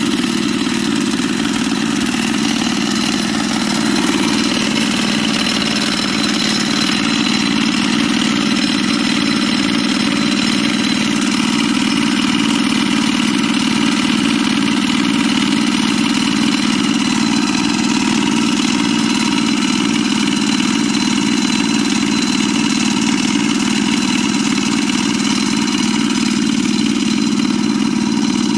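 Walk-behind tractor's small single-cylinder engine running steadily, a continuous even chugging with no change in speed.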